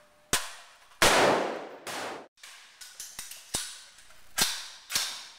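Rifle shots from several shooters on an indoor firing range, coming irregularly, about eight in five seconds. The loudest, about a second in, has a long echoing tail; the rest are sharp, short cracks.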